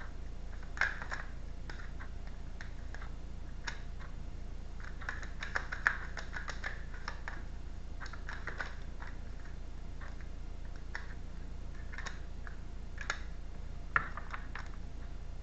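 A deck of tarot cards shuffled by hand: irregular soft clicks and rustles of the cards sliding and tapping against each other, with a few sharper snaps, over a steady low hum.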